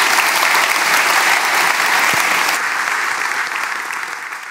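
Audience applauding, a steady dense clapping that slowly fades near the end.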